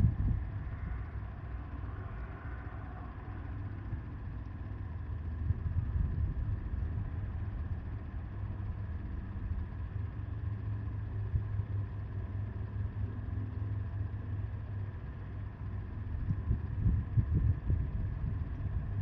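Wind blowing across the microphone: a low rumble that rises and falls in gusts, swelling about six seconds in and again near the end.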